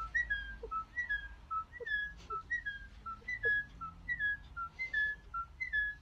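Pet parrot whistling a tune: a steady run of short, clear whistled notes, several gliding slightly down in pitch, about two a second.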